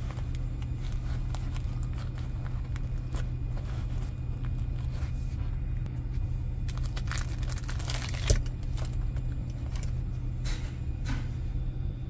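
Plastic sleeve rustling and crinkling as a folding knife is unwrapped by hand, with a sharp click about eight seconds in, over a steady low rumble.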